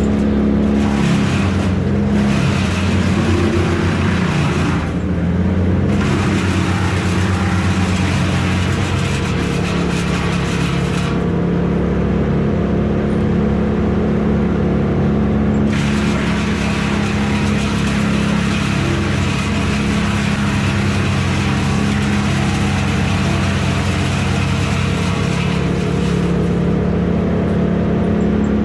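Engine running steadily, with a higher hiss over it that drops out for a few seconds twice.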